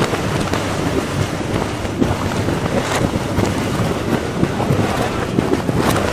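Trimmed young-coconut husk pieces tipped from a basket into a conveyor hopper: a dense, continuous clatter of light knocks, with a few sharper knocks, over a steady noise.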